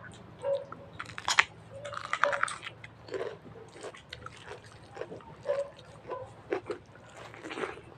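Close-up chewing and biting of a mouthful of food, with irregular crunches and wet mouth sounds.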